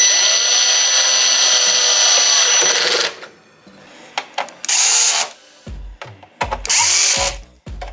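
Cordless drill-driver spinning a long bit, driving screws through a metal mounting plate into the back of a monitor: one steady run of about three seconds, then two shorter bursts, with a few low thumps in the second half.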